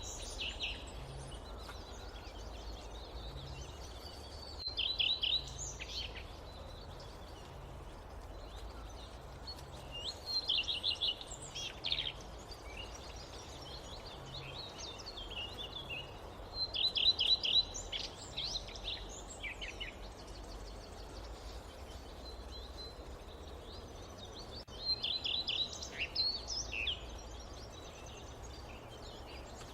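A songbird repeating a short phrase of rapid high notes every five to eight seconds, with fainter chirps between, over a steady low rumble of forest ambience.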